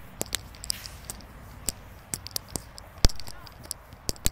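Irregular sharp clicks and knocks, with one louder thump about three seconds in.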